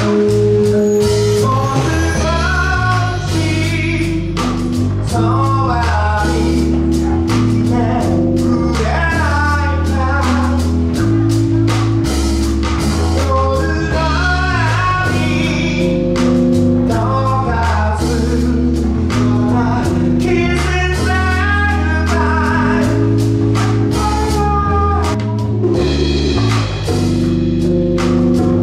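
Live band music: a male lead vocal sings a slow soul melody over keyboard chords, electric bass and a drum kit keeping a steady beat on cymbals.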